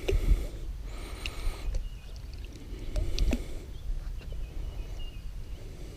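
Lake water lightly sloshing, with a low rumble and a few faint knocks.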